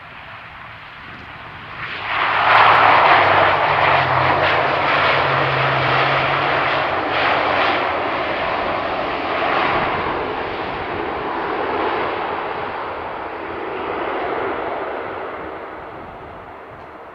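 ATR 72 twin-turboprop airliner's engines and propellers running as it rolls along the runway past the microphone: the sound rises sharply about two seconds in, carries a low steady drone, then slowly fades as the aircraft moves away.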